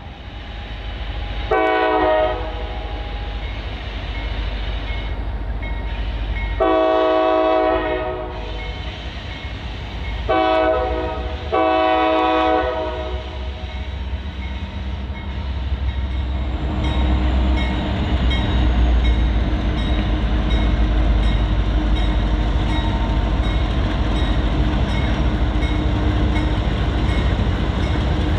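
A Norfolk Southern freight locomotive's multi-chime air horn sounds four blasts, long, long, short, long, the last two close together, in the rhythm of a grade-crossing warning. Then the train rolls past with a steady rumble and clickety-clack of wheels on rail joints.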